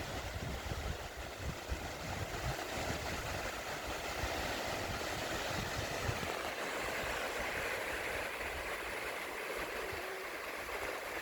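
Sea waves washing onto the shore: a steady surf hiss with no breaks.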